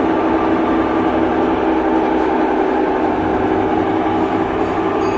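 Samsung top-load washing machine running in its spin cycle with a steady, very loud mechanical rumble and hum. The repairer puts the noise down to a failed gearbox, its inner gears worn.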